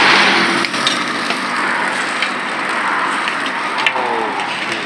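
Burger patties sizzling on a hot flat-top griddle, with sharp clicks and scrapes of metal tongs and a spatula against the plate.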